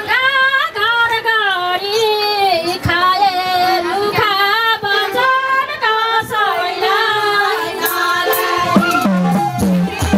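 Women singing a Nepali ratauli folk song, the melody held in long, sliding, wavering notes. A regular drum beat comes back in near the end.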